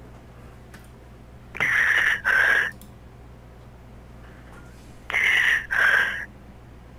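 A loud two-note whistled call, the second note a little lower than the first, sounded twice about three and a half seconds apart. A faint steady hum runs underneath.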